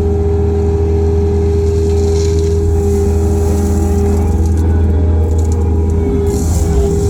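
Kobelco SK55 mini excavator running steadily under work: a loud diesel drone with a steady tone held above it.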